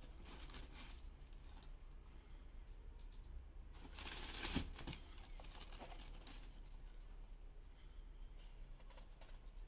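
Faint rustling and small taps of a sneaker being handled and turned over above tissue paper, with a louder brief rustle about four seconds in.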